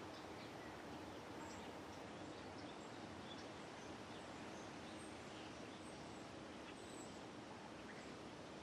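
Faint, steady background noise with a low hum, and a few brief, faint high bird chirps scattered through it.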